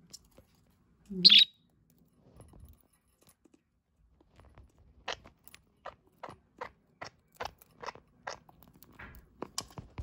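Budgerigar pecking and cracking birdseed off a hard windowsill: a run of sharp little clicks, two or three a second, through the second half. One short bird chirp about a second in.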